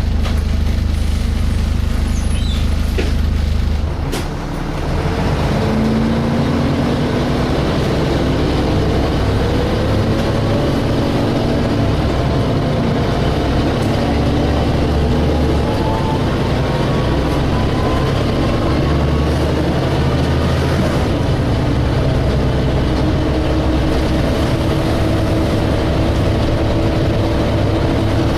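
DAF SB220 single-deck bus engine running under way, heard from on board. Its level dips briefly about four seconds in, then a whine rises slowly in pitch over about ten seconds and holds steady: the 'hoovering' whine that enthusiasts single out on these buses.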